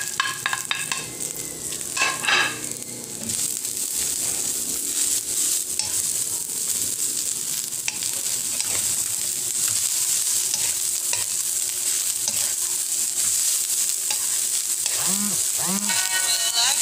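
Sliced vegetables sizzling in a hot pan while being stirred and tossed, with the utensil clicking and clinking against the pan in the first few seconds. The pan holds onion, carrot and freshly added cabbage. Music comes in near the end.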